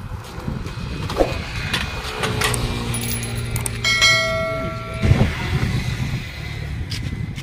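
Engine of a trolley-mounted air compressor running with a rough, steady low rumble. About four seconds in, a clear bell-like ding sounds over it and rings for about a second.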